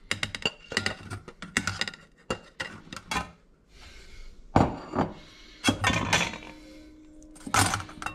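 A box grater and a ceramic bowl clinking, scraping and knocking against a stainless mesh sieve as grated potato pulp is tipped and knocked into it. First comes a quick run of small clicks and scrapes, then several louder separate knocks.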